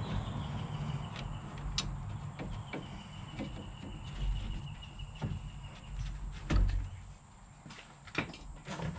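Scattered knocks, clicks and clunks of hand work on a vehicle, over a low rumble that fades about seven seconds in.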